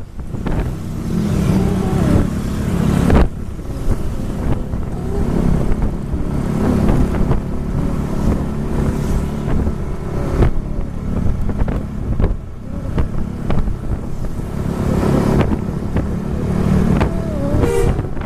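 Vehicle engines and road noise in moving traffic, with a few sharp knocks.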